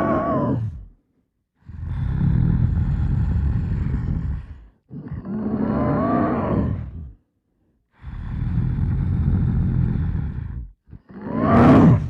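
Movie-monster growls and roars in separate calls: a roar dies away at the start, then a long rough low growl, a pitched roar that rises and falls, another rough growl, and a short sharp roar near the end. They are a man's voice performing the creature.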